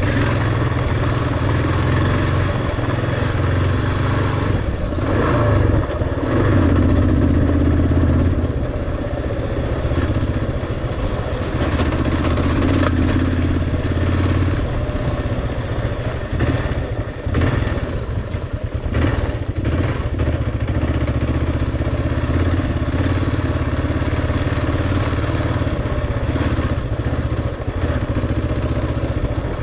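Kawasaki KLR650's single-cylinder four-stroke engine running under load while climbing a rough dirt road, its note rising and falling with the throttle. A few knocks and clatter come through around the middle.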